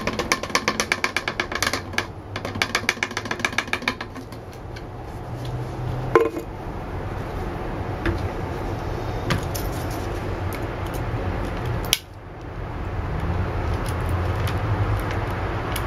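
A metal Plasti Dip can and a glass jar being handled: a fast run of light clicks, about seven a second, for the first few seconds, then a couple of single knocks, over a steady low hum.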